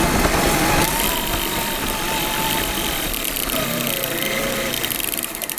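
Traxxas E-Maxx electric RC monster truck running fast over grass, heard from a camera on the truck. The motor and gear whine rises and falls in pitch with speed over a steady rumble of tyres and grass.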